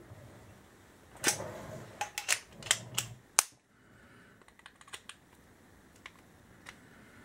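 Hard objects clicking and clattering as tools are picked through and handled: a quick run of sharp clicks over about two seconds, then a few fainter scattered ticks.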